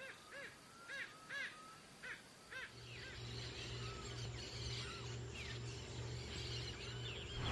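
A bird giving a series of short rising-and-falling calls, about two a second, followed by a faint chorus of smaller bird chirps. A low steady hum comes in about three seconds in.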